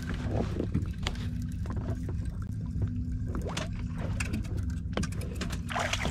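A boat's motor running steadily at idle, a constant low hum, with a few light clicks and knocks on board.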